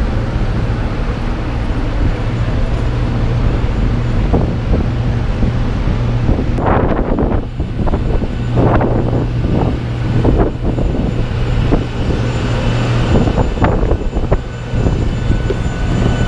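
Airport apron noise around parked jet airliners and ground vehicles: a steady low hum throughout, with irregular short surges of noise from about six seconds in and a faint high whine joining near the end.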